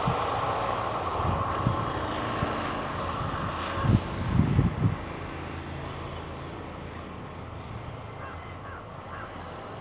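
Passenger train's rumble fading steadily as its rear coaches draw away down the track. A few low thumps come about four to five seconds in.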